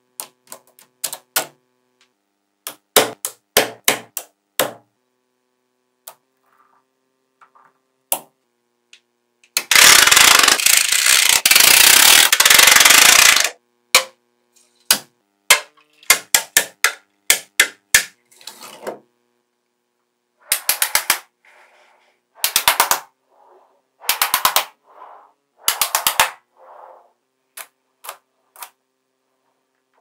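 Small magnetic balls clicking as they snap together, in quick clusters of sharp clicks. About ten seconds in, a heap of the balls rattles loudly for about four seconds.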